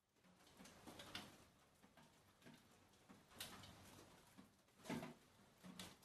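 Near silence, with a few faint, irregular ticks.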